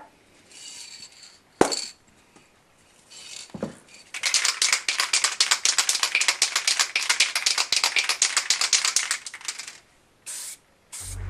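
Aerosol can of gold spray paint being shaken hard, its mixing ball rattling rapidly for about five seconds. Before it there are a few short hisses and a sharp click.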